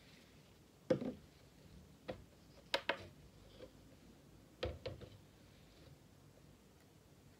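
A few light knocks and clicks of containers being handled on a worktable, one about a second in, a pair near three seconds and a pair near five seconds: a small glass beaker is lifted off a digital scale and tipped over a plastic jug.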